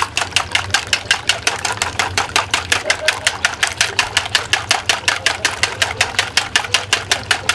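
Wire whisk beating eggs in a plastic bowl, its wires clicking against the bowl in a fast, even rhythm of about six strokes a second.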